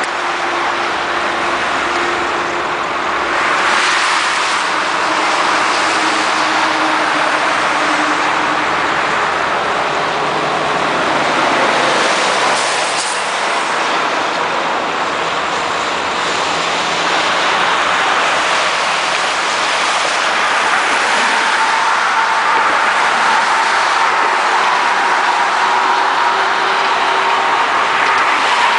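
Steady road noise from a convoy of tow trucks, pickups and cars driving past on a highway: engines and tyres on the pavement.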